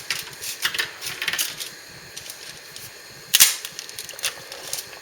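Long dry Cypriot makaroni tubes being broken in half: an irregular run of crisp cracks and clicks, with one louder crack a little past three seconds in.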